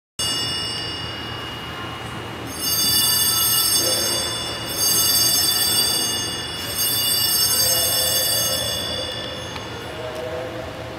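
Sanctus bells (a cluster of small altar bells) rung three times at the elevation of the host during the consecration, each shake a bright, high jangling ring that fades before the next.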